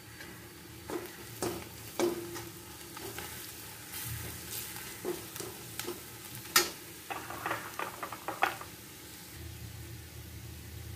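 Steel slotted spatula scraping and knocking against an iron kadai while stirring onion-and-spice masala frying in oil, over a low sizzle. The sharpest knock comes a little past halfway, followed by a quick run of scrapes.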